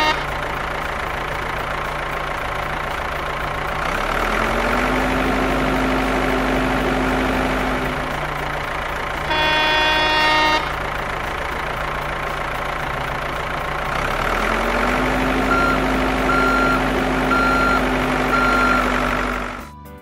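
Heavy construction-vehicle sound effect for a toy wheel loader: a diesel engine running and revving up twice, with a long horn honk about halfway through. Near the end come four short reversing beeps.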